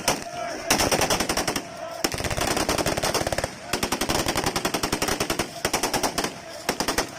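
Rapid automatic gunfire, many shots a second, in several long bursts with short breaks between them, with voices faintly underneath.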